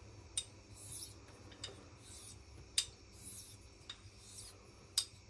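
Harlex straight razor being honed on a coticule stone without tape to touch up the edge: quiet, high-pitched swishes of the blade drawn across the stone, about one stroke a second, alternating with light clicks as the blade is flipped over on its spine.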